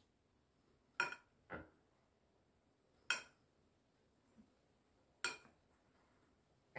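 Metal spoon clinking and scraping against a glass bowl of rice pilaf: about five sharp clinks spaced a second or two apart.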